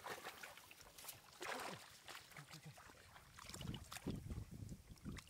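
Faint, irregular splashing and sloshing of shallow water, with a few short splashes scattered through.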